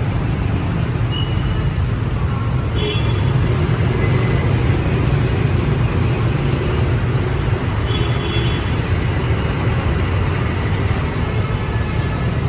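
Mori Seiki SL-25 MC CNC lathe running a test program: a steady low mechanical hum with a few short high tones now and then.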